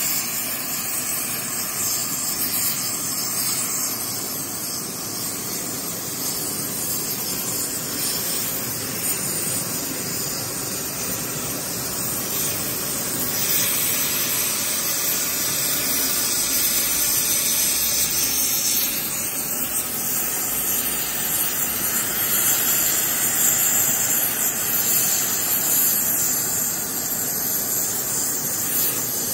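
Gas heating torch burning with a steady hiss while it heats a steel starter ring gear to expand it for removal or fitting.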